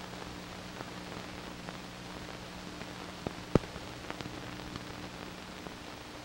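Old film soundtrack noise: a steady hiss with a faint low hum and scattered clicks, one louder pop about three and a half seconds in.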